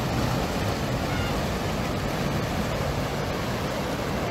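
Steady rushing of fast-flowing floodwater, an even noise that holds at the same level throughout.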